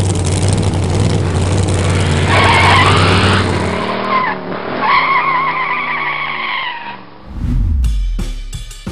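Car engine running steadily, then tires squealing in a wavering high screech for several seconds. Near the end a deep rumble swells briefly.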